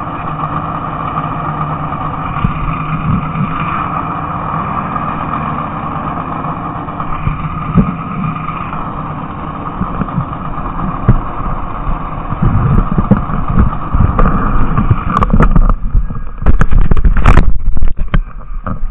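Motorcycle engine idling steadily. In the last few seconds, sharp knocks and rubbing from the camera being handled sound over it.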